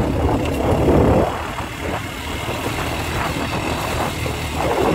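ATV (quad) engine running as the quad drives along, its sound dropping a little about a second in.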